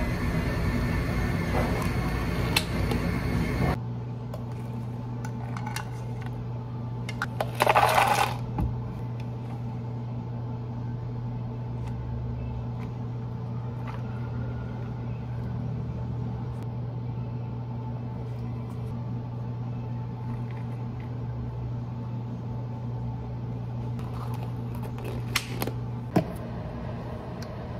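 Background music for the first few seconds, then a steady low hum of café equipment. Over it come drink-making handling sounds at a café counter: a brief loud rush about eight seconds in and a couple of sharp plastic clicks near the end.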